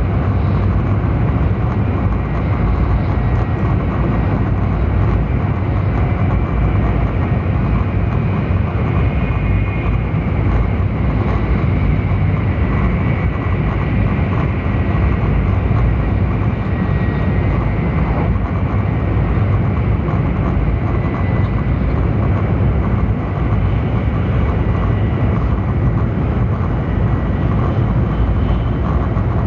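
Cabin noise inside a Taiwan High Speed Rail 700T trainset running between stations: a steady, even rumble of wheels on rail and air rushing past the car body, with a faint high-pitched whine in the background.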